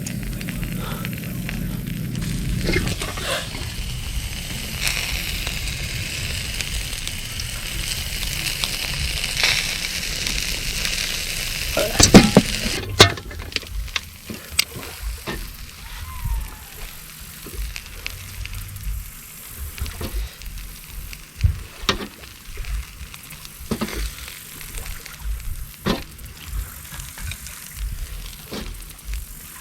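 Chicken sizzling on a grill over a campfire, with a few loud knocks about twelve seconds in and scattered crackles and taps after that.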